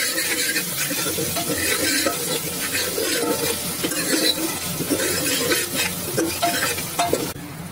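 Metal spoon stirring and scraping onion-and-spice masala frying in hot oil in a pan, with a steady sizzle under the repeated scrapes. The sizzle thins out near the end.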